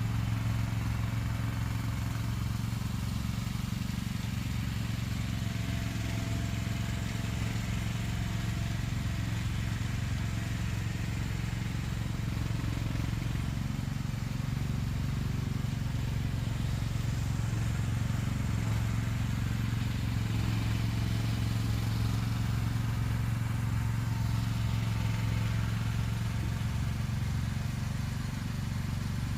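A vehicle engine running steadily with a low, even hum, holding the same pitch throughout.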